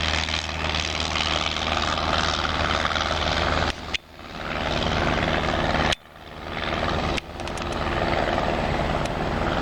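Airplane engine running at takeoff power as the plane does a touch-and-go on the runway, a steady loud drone with a low hum. The sound drops out sharply about four and six seconds in and swells back up.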